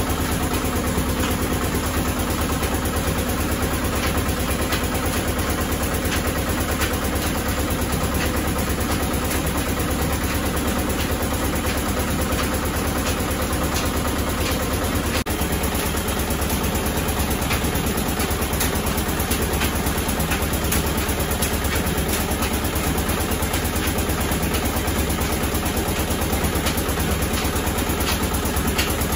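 Screw-type oil expeller press running steadily under load: a continuous mechanical drone with a low hum and a constant fine clatter.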